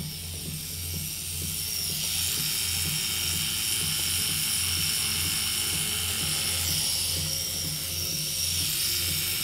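Tattoo machine running steadily with a low hum and a regular pulse as colour pigment is packed into the skin.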